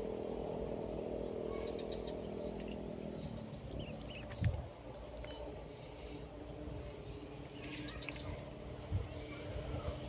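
Insects chirping in a steady high-pitched pulse, about four pulses a second, over rural outdoor ambience, with a low steady hum that fades out about three seconds in. A short knock, likely handling noise, is the loudest moment, about halfway through, with a softer one near the end.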